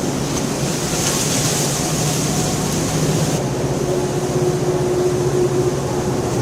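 Steady rain with a low continuous rumble under it. The high hiss of the rain drops away suddenly about three seconds in.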